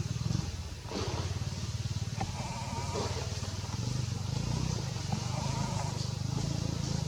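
A motor engine running steadily with a low rumble, with faint wavering high tones about three seconds in and again near the end.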